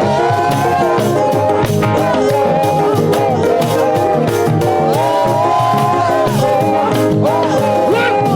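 Live praise music from a church band: a steady drum beat and bass line under long, held melody lines.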